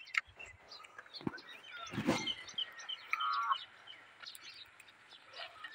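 Small birds chirping and calling against outdoor background noise, with a short trilling call about three seconds in and a brief burst of noise about two seconds in.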